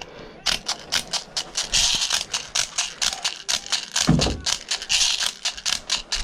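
Airsoft gunfire: a fast string of sharp clicks and snaps, several a second, with waves of high buzzing behind them.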